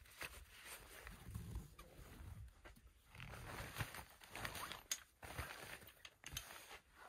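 Fabric rustling and scraping, with scattered light clicks and knocks, as a folding camp cot with a metal frame is worked out through the doorway of a fabric ice-fishing tent. Boots shift in the snow.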